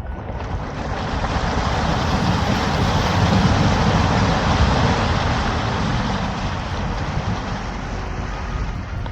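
A vehicle driving through deep snow and slush: a steady rushing of tyres and engine with a low rumble. It swells to its loudest midway, then eases off.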